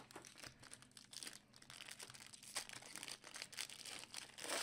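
Trading-card packaging being handled and opened: faint, irregular crinkling and tearing of plastic wrap.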